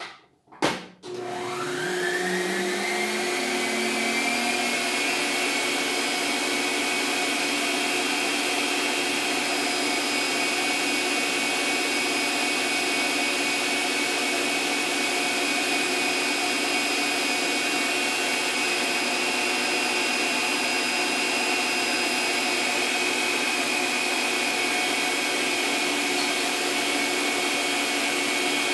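Electric stand mixer switched on after two clicks, its motor whine rising over about two seconds, then running steadily as the whisk beats cake batter.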